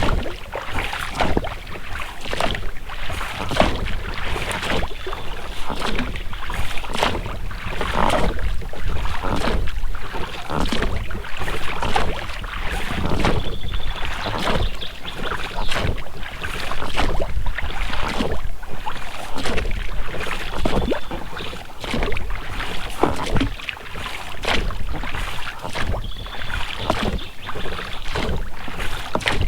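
Oars of an inflatable boat being rowed: repeated splashing and dripping of the blades in the water, with the rubber rowlocks working and a short high squeak coming back every several seconds.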